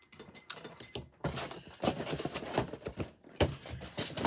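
Cardboard boxes and packaging being handled: irregular rustling with a few sharp knocks, starting about a second in.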